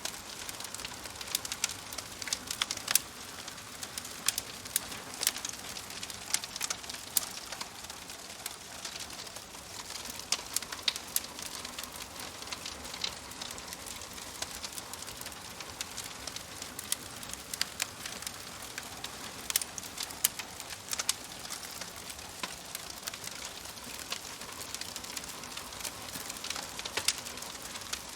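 Wood fire crackling in a fireplace: a steady soft hiss with irregular sharp pops and snaps, a few of them louder.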